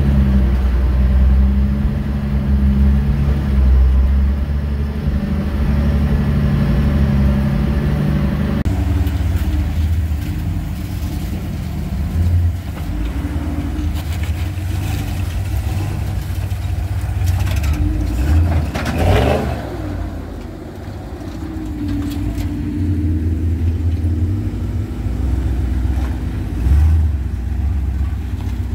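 Old Dodge 4x4 truck engines working on a rock trail. The engine runs steadily from inside the cab at first. After a sudden change about a third of the way in, the trucks crawl over rock ledges, their engines rising and falling in revs, with a brief rev near the middle.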